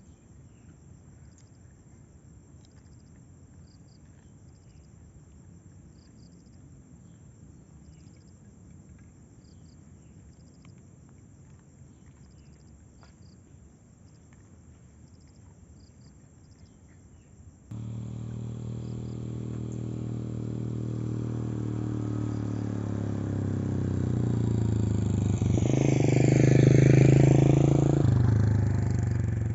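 Insects chirp faintly. About two-thirds of the way through, a vehicle engine starts in abruptly. It grows louder as the vehicle approaches, passes close near the end, then begins to fade.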